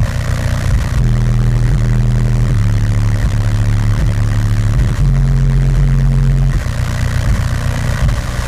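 A song played through car audio subwoofers at almost full volume, driven by two strapped amplifiers: loud, deep bass notes that change pitch every second or so.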